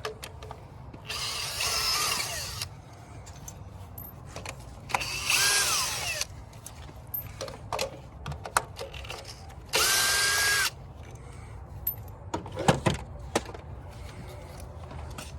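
Power drill run in three short bursts, each with its motor whine spinning up and winding down. A few sharp clicks and knocks follow near the end.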